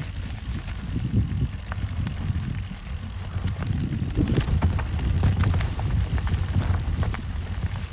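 Mountain bike riding down a rough trail: steady low noise of wind and tyres on the microphone, with frequent sharp clicks and rattles from the bike over stones.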